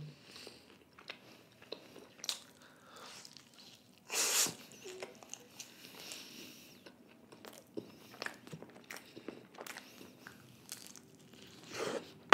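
Close-miked chewing of a cheesy pizza slice, with many small wet mouth clicks and smacks. Two louder bites come about four seconds in and again near the end.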